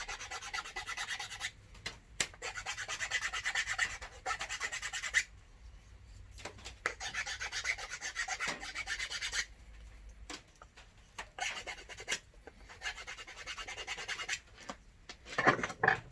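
A plywood climbing hold being abraded by hand, with quick back-and-forth rubbing strokes in three spells, then lighter scattered strokes and a louder knock of handling near the end.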